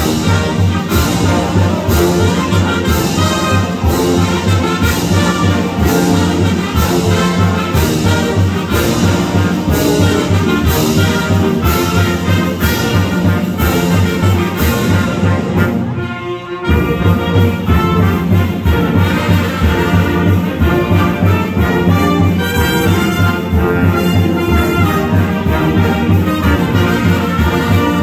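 Wind and percussion band playing a lively piece: trumpets, trombones, saxophones and sousaphones over a steady percussion beat. About sixteen seconds in the music briefly breaks off, then comes back in full.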